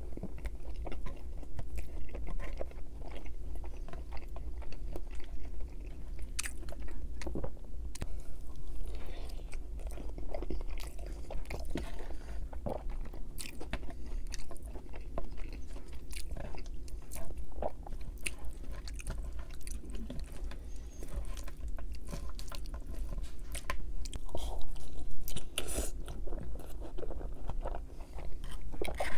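Close-miked chewing and biting of ketchup-topped poutine, with crunching and many short wet clicks. A fork scrapes and picks at the fries on the tray now and then, over a steady low hum.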